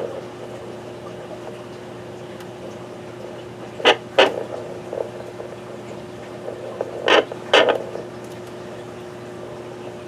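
Handheld fetal Doppler's speaker at full volume, held on a gravid boa constrictor, giving only steady static with a faint hum: no fetal heartbeat is picked up. Two pairs of sharp pops come about four and seven seconds in.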